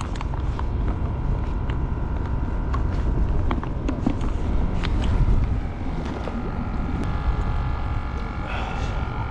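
Steady low rumble of strong wind on the microphone, with scattered handling knocks. From about six seconds in, a faint steady hum joins it: the small electric water pump feeding the live-bait bucket, just switched on.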